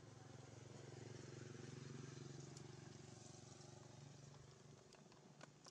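Faint hum of a passing motor vehicle's engine, swelling about two seconds in and then fading away, with a few faint clicks near the end.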